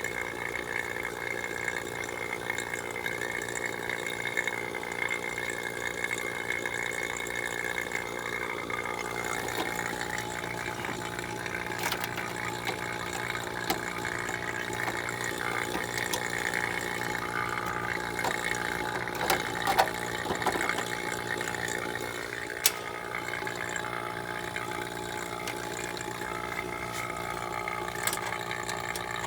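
Refrigeration vacuum pump running steadily, evacuating a newly brazed heat pump system to pull out moisture. A few sharp clicks sound over it.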